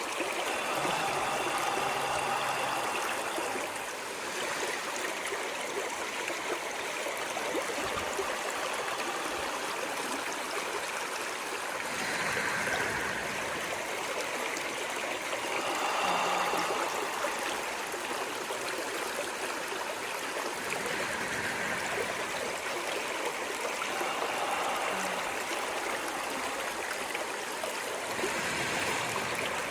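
Running water of a stream: a steady rush with some gurgling, swelling a little every few seconds.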